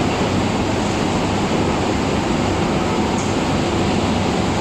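Automatic powder coating spray line running: a steady, loud, noisy rush with a low hum underneath and no breaks.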